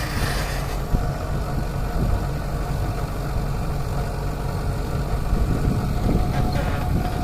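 Heavy diesel engines of an excavator and tipper truck running steadily, with a single sharp knock about a second in.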